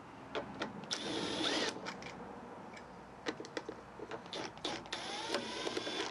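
Cordless ratchet spinning off the 10 mm nuts that hold the air cleaner of a small engine: two short runs of a small motor whine, about a second in and again near the end. Light clicks of the socket and handling come between the runs.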